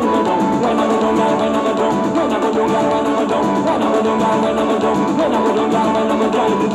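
Dance song's backing music playing without lyrics: an instrumental stretch between sung lines.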